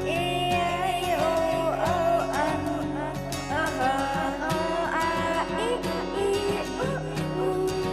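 Instrumental background music: a gliding melody over a steady accompaniment.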